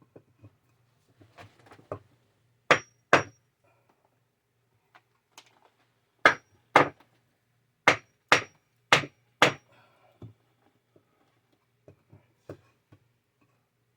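Hammer blows on a wooden block: two strikes a few seconds in, then six more in quick pairs about half a second apart, each with a brief metallic ring. Fainter knocks and handling sounds come between them.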